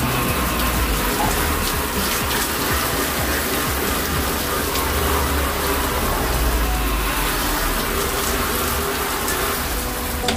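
Garden hose spray nozzle jetting water onto louvered shutters: a steady hiss of spraying water.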